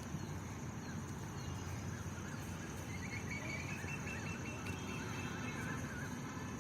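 A small bird singing a fast trill of repeated short notes, followed by wavering, warbling notes, over steady garden ambience with a constant thin high tone.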